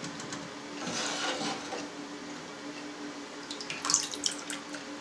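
Slotted plastic skimmer swishing through milky whey in a stainless steel pan, scooping up soft Adyghe cheese curds, with liquid sloshing about a second in. Near the end comes a quick run of sharp clicks and scrapes as the skimmer knocks against the steel pan.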